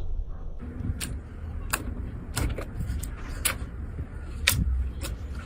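Slime being poked and squeezed by hand, giving a string of sharp pops and clicks about every half second to second, over a low handling rumble.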